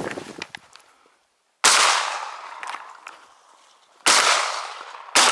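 Shotgun firing: one shot about a second and a half in, then two more a little over a second apart near the end. Each shot is a sharp crack followed by a long fading echo.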